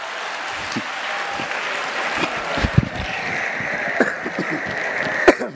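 Congregation applauding, with voices calling out over it. The applause cuts off sharply near the end.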